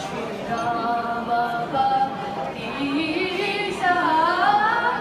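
Two young girls singing a song into microphones, holding long notes, then a wavering, ornamented melodic phrase near the end.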